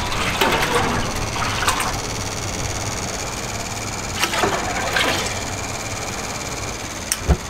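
Commercial kitchen ambience: a steady mechanical hum with scattered clinks and clatters of cookware, and a sharp knock near the end.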